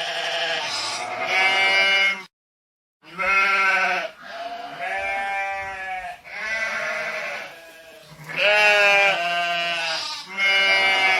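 An animal crying out in a run of about ten drawn-out, wavering calls, each lasting up to a second. The sound cuts to silence for under a second about two seconds in.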